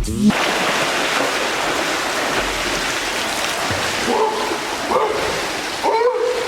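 Steady rushing noise like running or spraying water, with three short whining calls about four, five and six seconds in.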